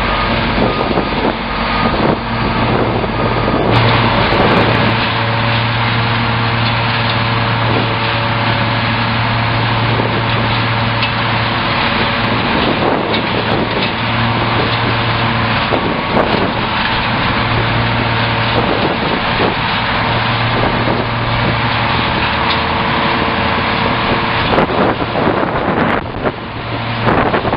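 Roto Grind 1090 tub grinder running under load, its hammer mill grinding a round hay bale: a loud, continuous rush of shredding hay over a steady machine hum.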